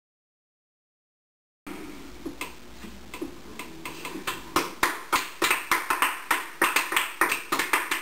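Hand clapping by a few people, starting after a brief silence: scattered claps at first that grow quicker and denser toward the end, not in unison.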